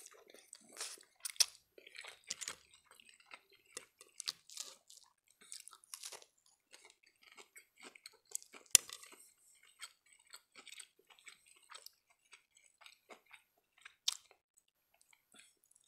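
Close-miked chewing and wet mouth sounds of a man eating spaghetti and breaded cheese nuggets, many small smacks and crunches, with one sharp click about nine seconds in.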